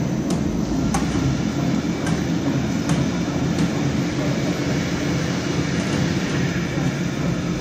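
Snack pellet extrusion line running: a steady, loud mechanical rumble with a few sharp ticks in the first half.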